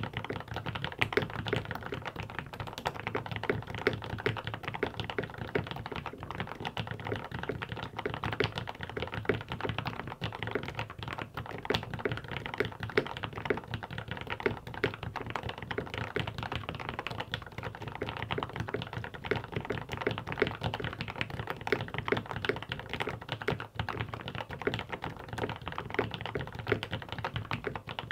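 Mechanical keyboard being typed on continuously and quickly: a dense stream of keystrokes with a low, muted tone and little high click.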